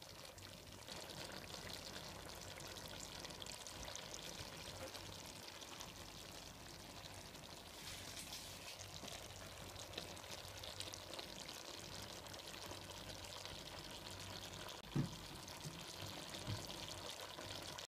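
Faint, steady sizzle of chop suey vegetables and sauce cooking in a wok, with a brief low thump near the end.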